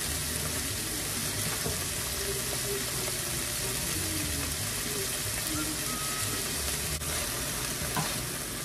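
Diced chicken breast sizzling steadily in vegetable oil in a hot frying pan, hot enough to spatter, with a spatula stirring it near the end.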